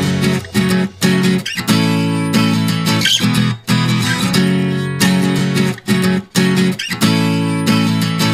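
Background music: strummed guitar chords with brief stops between phrases.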